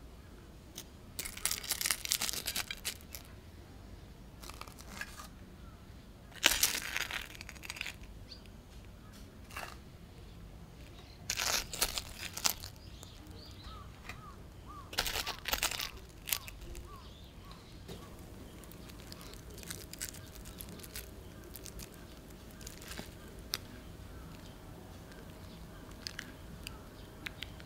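Crisp breadcrumb-coated fried corn dogs being handled and set down on a plate, their crunchy crust rustling and crackling in four short bursts, with small clicks between. A faint steady tone comes in after about 18 seconds.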